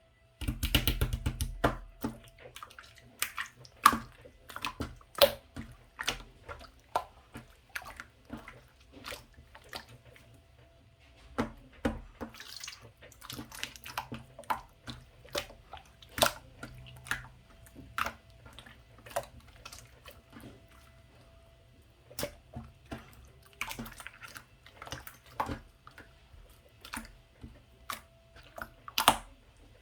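Liquid being poured into a glass for a fruit ade, starting about half a second in, followed by many irregular sharp clicks and drips, with a few more short pours or stirs along the way.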